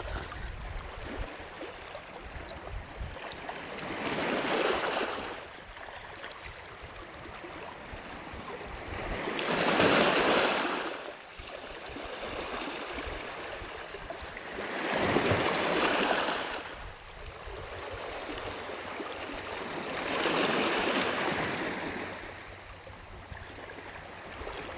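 Small sea waves washing in over a pebble beach, four swells about five seconds apart, each building up and fading away.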